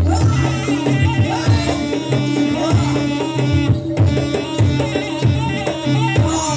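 Live Javanese jaranan campursari music: hand drums (kendang) playing a busy, rapid rhythm over a strong low sustained tone, with a wavering melodic line above.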